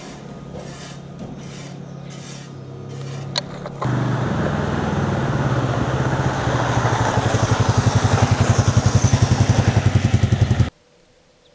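A motor vehicle engine running close by, with a broom scraping over loose volcanic gravel. About four seconds in, the engine becomes much louder with a fast, even throb that builds, then cuts off abruptly near the end.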